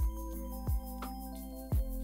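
Background music: an electronic track with a deep, falling thump on the beat three times, over held steady tones and light high ticks.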